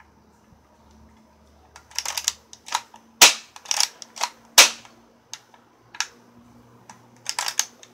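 Daisy Powerline 340 spring-air BB pistol being cocked and fired with no BBs loaded: a string of sharp clicks and snaps, some in quick clusters, the two loudest about three and four and a half seconds in.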